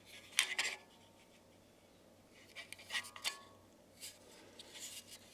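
Polymer pistol magazines handled: a few faint, short clicks and rubbing scrapes, about half a second in, around three seconds in and again near the end.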